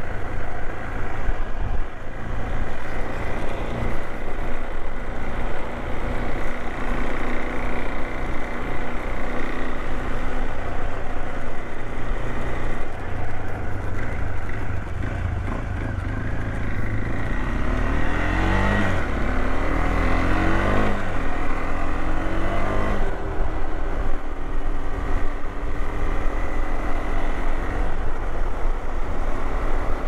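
Adventure motorcycle engine running under way, with wind and road rush over the microphone; about two-thirds of the way through the engine note rises sharply twice as the bike accelerates.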